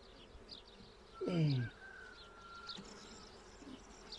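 Honeybees buzzing around an open hive, a faint steady hum, with one louder buzz sliding down in pitch about a second in.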